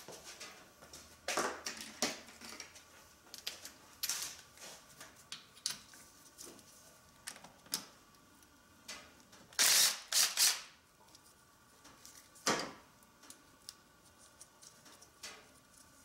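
Socket wrench working bolts loose on an engine: scattered short ratchet clicks and metal tool clinks, with a loud quick run of clicks about ten seconds in and another sharp click a couple of seconds later.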